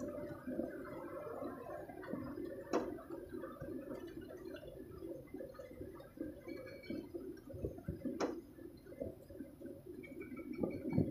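Heavy rain falling on an excavator's cab roof and windows: a dense, irregular patter of small taps, with two sharp clicks about three and eight seconds in.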